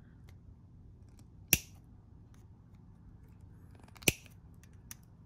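Nippers snipping through a thin aluminium RC-scale grill: two sharp snaps about two and a half seconds apart, then a faint tick.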